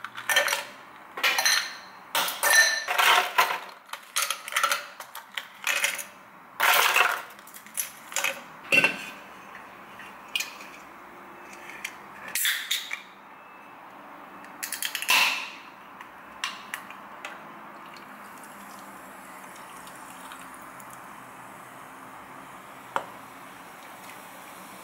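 Ice cubes scooped and dropped into glass cups, clinking over and over for the first several seconds. About halfway a can of shandy is opened with a sharp pop, then poured over the ice, giving a steady fizzing hiss.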